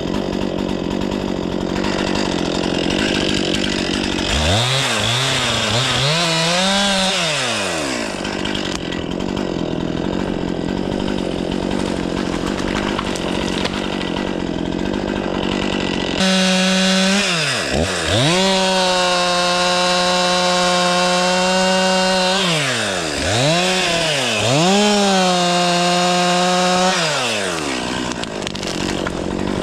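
Stihl 500i chainsaw running hard while cutting wood, its engine pitch dipping and climbing back several times as the chain takes and sheds load.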